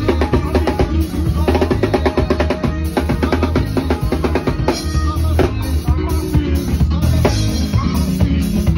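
Live band music, loud and busy: a drum kit keeps a fast, steady beat of kick and snare strokes over an electric bass line.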